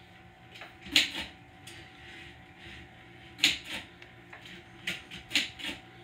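Typewriter keys being struck slowly and unevenly: about ten sharp clacks with pauses between them, the loudest about a second in and about three and a half seconds in.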